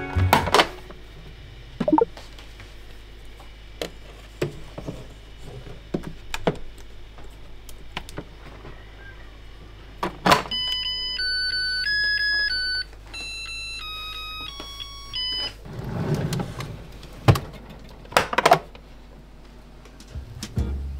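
Clicks and knocks of an IH rice cooker's lid and buttons being pressed, then about halfway through the cooker plays its short electronic start tune of stepped beeping notes for about five seconds. A few dull thumps follow near the end.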